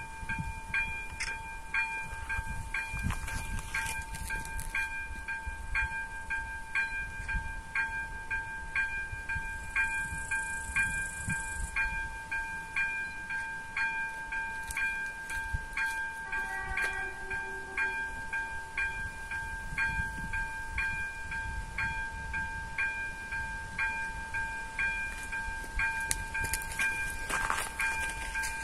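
ZV02 electronic level-crossing bell ringing in a steady, regular rhythm as the crossing's warning runs for an approaching train. About two-thirds of the way in, a short horn sounds briefly, likely the approaching train's horn in the distance.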